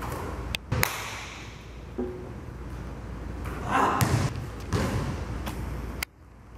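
Basketball coming down from a shot at the rim and bouncing on a hardwood gym floor: a few separate thuds, the loudest about a second in.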